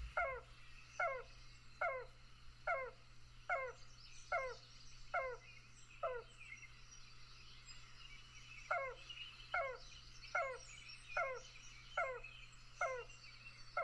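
Yellow-billed cuckoo calling a slow series of single falling 'cow' notes, about one every 0.8 seconds: eight notes, a pause of about two seconds, then seven more. Other birds chirp faintly behind it.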